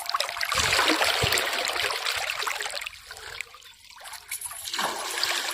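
Water splashing and trickling, loudest in the first two seconds, then dying away, with a second short rush of water near the end.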